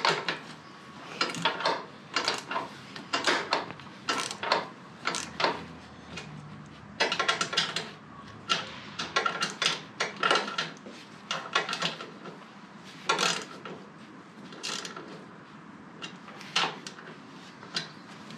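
Irregular metallic clinks and knocks of bolts and hand tools being handled on a wooden trailer deck while a mower wheel stop is fitted, often several in quick succession.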